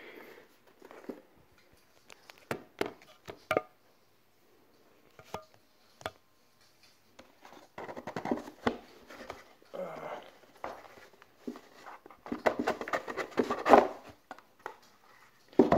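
Cardboard packaging being handled on a table: scattered light taps and knocks, then bouts of cardboard rubbing, sliding and scraping, the longest near the end.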